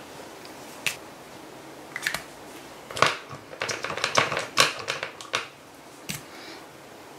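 Scattered light clicks and taps of a paint pen and art supplies handled against a card on a tabletop, about a dozen spread unevenly over the first five seconds or so, then quieter.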